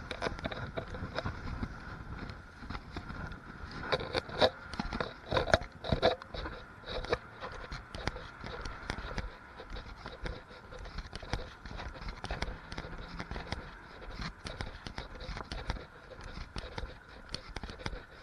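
Typhoon wind and rain, the gusts buffeting the microphone with a low rumble, over many sharp ticks and rattles that are densest and loudest about four to six seconds in.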